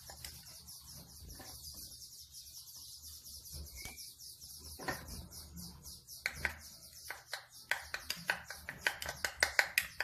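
A small metal spoon stirring and scraping a soft paste around a small plastic cup, a fast run of short scraping strokes, with sharper, louder clicks against the cup in the second half. A single short bird chirp about four seconds in.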